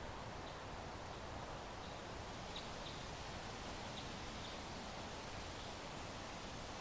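Soft, steady wind noise: an even hiss without gusts. A few faint, short high chirps sound in the middle.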